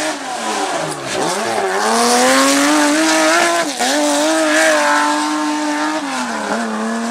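Rally car engine under hard acceleration, its pitch climbing through each gear and dropping at the gear changes, about a second in, near the middle and again near the end.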